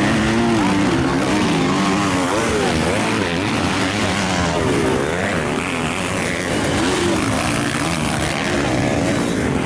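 Several motocross bikes racing on a dirt track, their engines overlapping in a buzzing drone. The pitch climbs and drops again and again as the riders open and close the throttle through the turns.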